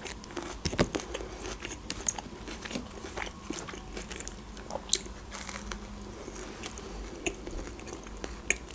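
Close-miked eating: biting into a McChicken sandwich, a breaded chicken patty in a soft sesame bun, and chewing, with small wet mouth clicks. One sharper crunch comes about five seconds in.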